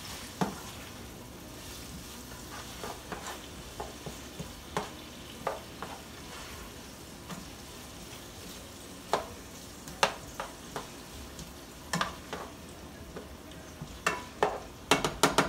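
Sliced bell peppers, onion and tomato sizzling in oil in a nonstick frying pan while being stirred with a spatula. Sharp knocks of the spatula against the pan come every second or so, with a quick run of knocks near the end.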